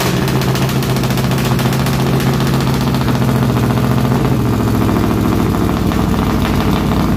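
A 383 stroker small-block Chevy V8 in a 1957 Bel Air running loud and steady at idle on a cold engine, which the owner calls cold-blooded.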